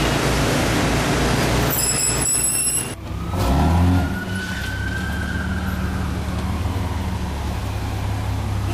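Street traffic: a vehicle engine revs past, loudest just before the middle, over a steady low engine drone, with a faint drawn-out whine rising and then falling.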